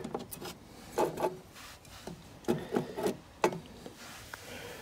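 Stepper drive modules being shifted around inside a controller enclosure: several short scrapes and light knocks as they are slid and set down on the case floor, irregularly spaced.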